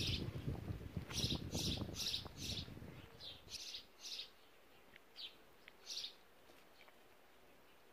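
Small birds chirping: short high chirps, many in quick succession at first, then fewer and more scattered. Under them a louder low rustling rumble stops about three and a half seconds in.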